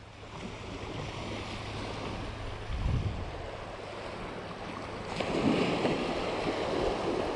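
Small surf waves washing up on a sandy beach, with wind buffeting the microphone; the wash of water swells louder about five seconds in.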